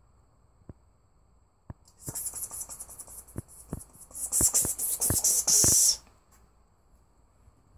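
A person calling a cat with a rapid hissing 'pspsps', starting about two seconds in and growing louder, the last hiss held longest, with light ticks among it.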